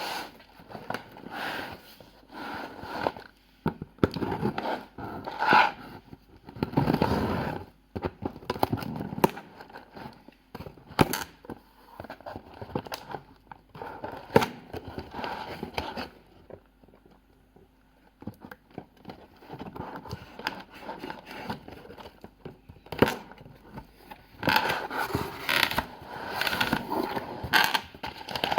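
Packaging being handled and opened by hand: irregular scraping, rustling and sharp clicks, with a quieter pause about halfway through.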